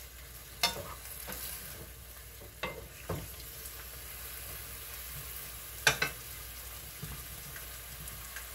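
Bok choy sizzling as it stir-fries in a frying pan, turned with a wooden spatula, with a few sharp knocks of the spatula against the pan over the steady sizzle.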